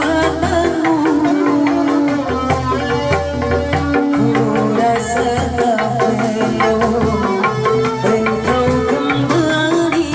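Sundanese gamelan music: hand drums beating a busy rhythm under struck metallophone notes and a held, wavering melodic line.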